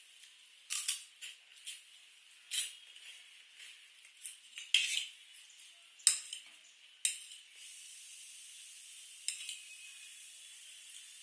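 Close-miked eating sounds: utensils clicking against a dish and a scattered series of sharp wet smacks, then a steady hiss through the last few seconds.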